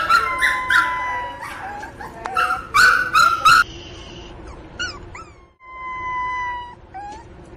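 Pinscher puppy crying very loudly for its mother: a run of sharp, loud yelping cries in the first few seconds, then short whimpers and a long, thin, steady whine near the end.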